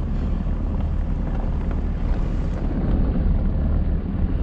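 Steady low rumble of a pickup truck's engine and running gear, heard from inside the cab as it moves slowly.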